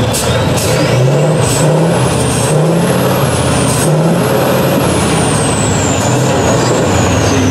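Tatra 815 6x6 trial truck's diesel engine revving up and down under heavy load as it crawls over rough ground, with a high whine that climbs early on and then slowly falls, and a few sharp knocks.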